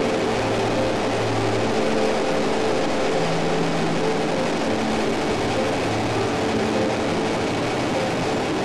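PZL Kania helicopter's rotor and twin turboshaft engines running steadily, heard from on board as a constant rushing noise.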